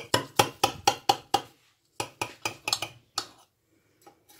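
Metal knife clinking against a glass baking dish as it cuts through a baked, cheese-crusted rice casserole: quick taps about four a second, then a few more about two seconds in before it goes faint.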